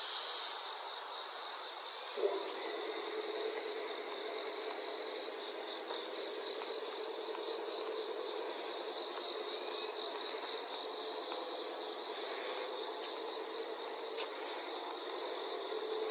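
Insects chirping steadily and high-pitched, with a steady lower hum joining about two seconds in.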